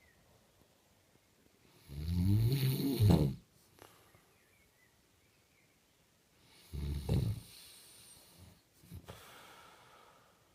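A man snoring in his sleep: two loud snores about five seconds apart, the first lasting about a second and a half, then a softer breath near the end.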